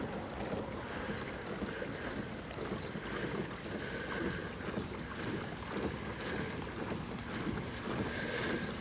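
Steady drone of a small boat under way, with water noise and wind buffeting the microphone.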